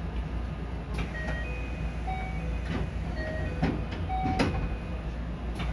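Steady low hum of a stopped JR West 225-series electric train standing with its doors open at a platform, with a few sharp clicks and a scatter of short tones at several different pitches.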